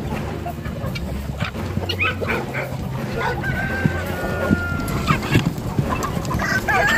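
A flock of roosters and hens clucking and calling as they feed, with one long rooster crow about halfway through and another call near the end.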